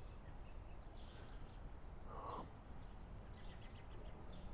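Faint chirping of birds in the distance, with one short, harsher call about two seconds in.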